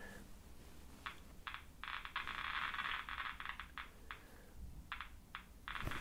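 Thermo Scientific Mini 900 ratemeter's loudspeaker clicking with detected counts from its probe, each click a detected count. The clicks come in short spurts and run together into a continuous rattle for nearly two seconds, starting about two seconds in.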